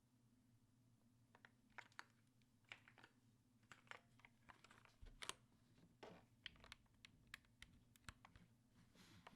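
Typing on a Fox Lab Time 80 Reforged keyboard with lubed and filmed vintage Cherry MX Black linear switches on 65g springs, in an aluminium plate with KAT Alpha keycaps. The keystrokes are faint and irregular, starting about a second and a half in, and a few strokes carry a low thump.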